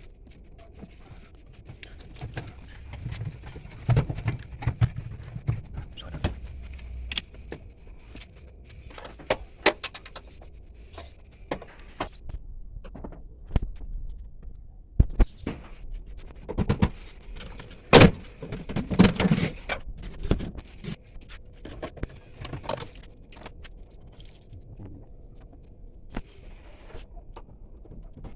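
Repair work being done by hand: scattered knocks, clanks and rattles of tools and parts being handled, with one sharp knock standing out about eighteen seconds in.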